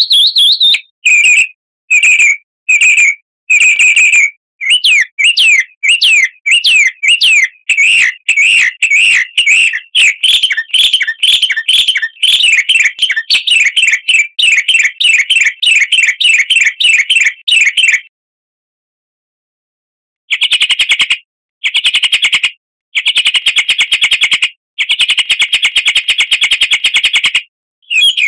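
Recorded songbird song, played loudly as a bird-training lure: separate short chirps about a second apart, then a fast chattering run of rising chirps. After a pause of about two seconds come several buzzy, rattling trills.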